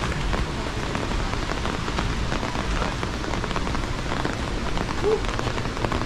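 Heavy rain falling steadily, a dense even hiss of drops hitting surfaces.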